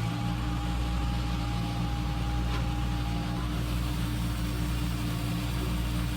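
Steady hum and whine of the small electric motors driving a radio-controlled model excavator, holding a few constant tones that shift slightly as the load on the motors changes.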